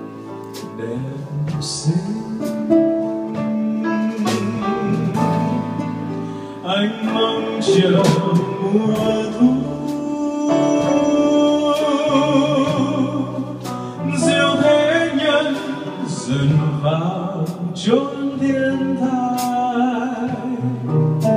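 Live band music: a man singing in Vietnamese into a microphone, with wavering vibrato on held notes, accompanied by guitar and a drum kit with scattered cymbal and drum strokes.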